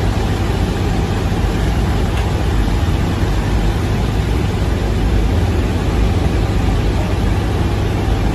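Steady, loud engine and airflow noise inside a military transport aircraft's cargo hold in flight, strongest and deepest at the low end and unbroken throughout.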